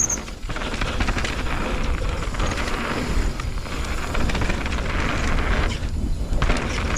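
Mountain e-bike riding down a rough trail: a steady rumble and rattle of tyres and bike over the ground, with wind buffeting the helmet camera's microphone. A brief high-pitched squeal of the disc brakes right at the start.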